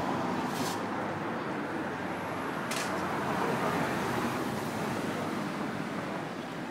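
Cars driving slowly past through a town junction, a steady hum of engines and tyres. Two brief sharp clicks come about half a second and nearly three seconds in.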